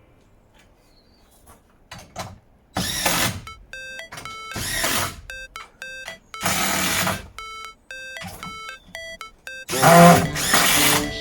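Power drill running in four short bursts, with a high, stepped whine in the gaps between them.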